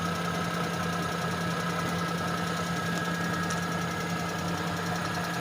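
Vehicle engine idling steadily on its freshly overhauled carburetor, set to idle speed.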